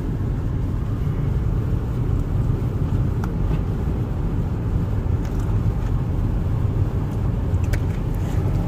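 Steady low rumble of a car's engine and tyres, heard inside the moving car's cabin.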